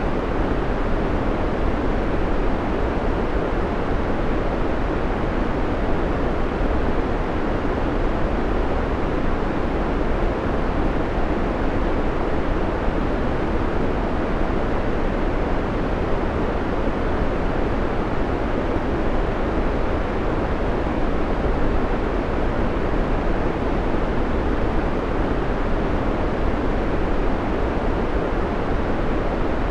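Steady white noise: an even, unchanging hiss, fuller in the low and middle range than at the top.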